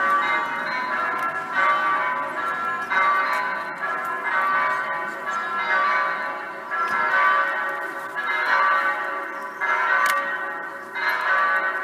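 Electronic church bells, an eight-bell simulated set in B2 sharp played through loudspeakers, ringing several bells together in a peal. New strikes come about every second and a half, each ringing on into the next.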